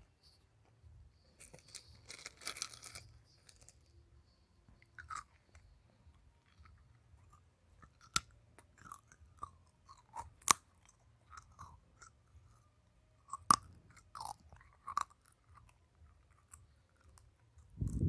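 Close-up chewing and crunching of a crunchy snack, picked up by a wired earphone microphone held at the mouth: a crackly stretch about two seconds in, then scattered sharp crunches, the loudest around ten and thirteen seconds in.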